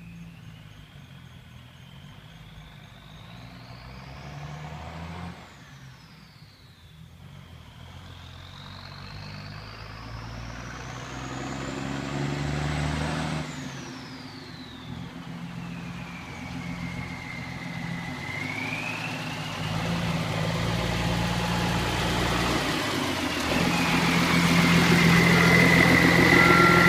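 M35A2 deuce-and-a-half's turbocharged multifuel engine running, with the C-model turbo whistling above it. The whistle climbs steeply in pitch, drops quickly about five seconds in, climbs again to a higher peak and falls away. The engine grows steadily louder toward the end.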